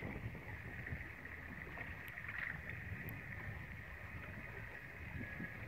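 Steady low rumble of water and wind noise around a small boat, with a faint steady high-pitched whine running through it.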